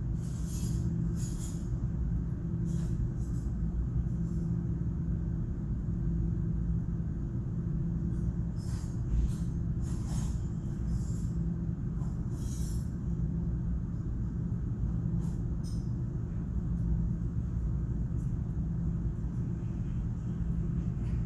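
A steady low rumble with a constant hum in it, over which light rattles and clinks come and go a dozen or so times.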